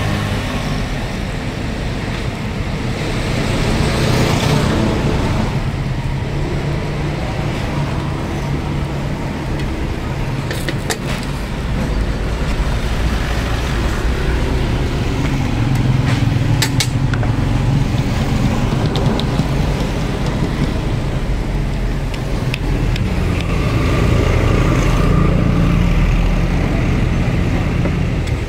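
Steady road traffic: motor vehicles running and passing, swelling and fading, with a few sharp clicks.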